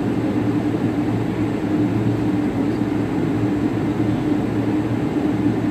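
Steady airliner cabin noise: engine and airflow drone with a constant low hum.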